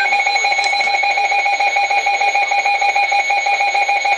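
NOAA weather radio receiver's built-in alert alarm sounding: a loud, rapidly pulsing electronic beep, set off by an incoming severe thunderstorm warning.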